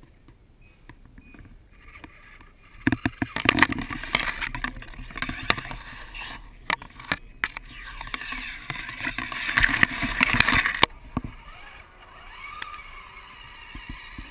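Water splashing and sloshing close to the microphone, rough and full of crackling clicks, loud from about three seconds in until it drops off suddenly near eleven seconds.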